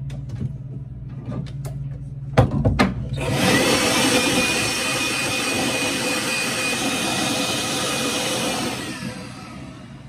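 Makita electric blower starting up after a couple of knocks, then running at a steady pitch with a rush of air as it blows dust out of the CNC control console, winding down near the end.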